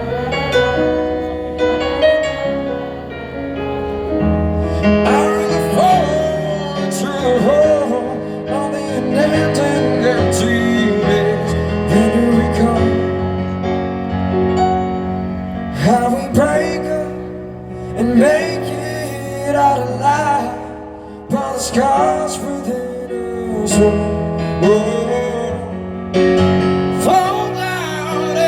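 Live pop-rock band music with keyboard chords under a melody line that slides up and down in pitch.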